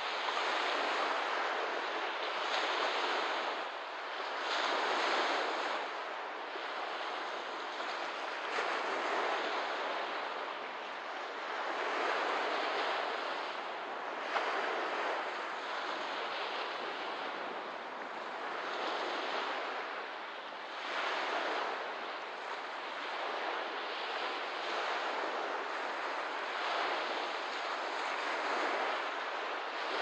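Small waves washing onto a lakeshore, a continuous hiss of water that swells and eases every two to three seconds.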